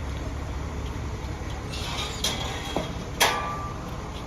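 A few sharp clacks and knocks, the loudest a little over three seconds in with a brief ring after it, over a steady low hum.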